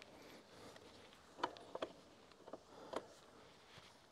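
A few faint, separate clicks and light knocks from a loose motorcycle rear wheel being shifted and lined up by hand under the swingarm.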